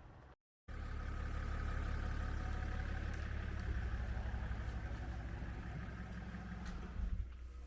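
A car's engine running steadily with a low, even hum. It starts abruptly after a moment of dead silence and drops away near the end.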